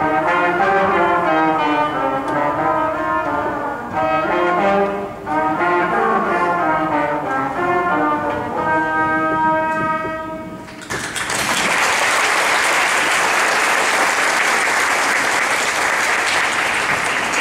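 A young brass trio playing a tune in harmony, ending on a long held chord; then, about eleven seconds in, the audience applauds.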